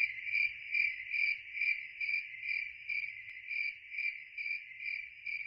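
Crickets chirping in an even, steady rhythm, about two to three pulses a second, as night-time ambience.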